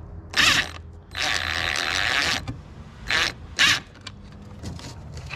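Tool work fastening the positive cable onto the starter battery's terminal: short rasping strokes, with one longer steady rasp lasting about a second and a half starting about a second in, and light clicks near the end.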